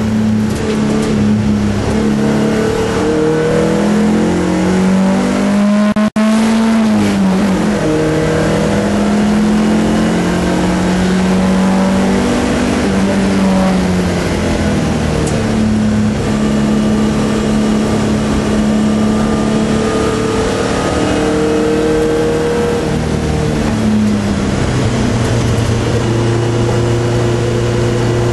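BMW 318 (E21) four-cylinder engine heard from inside the cabin at speed on track, its pitch climbing under acceleration and dropping at each gear change or lift, over constant road and wind noise. The sound cuts out for a moment about six seconds in, and the engine runs at lower, steadier revs near the end.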